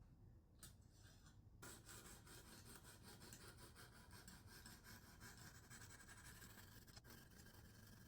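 Faint rasping of a medium diamond hone on a Lansky guided sharpening rod, stroked repeatedly along the edge of a clamped knife; the strokes begin about a second and a half in.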